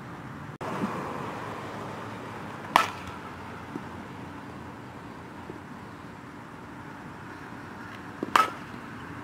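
Fastpitch softball bat striking the ball twice, each hit a sharp ping with a brief metallic ring, about five and a half seconds apart.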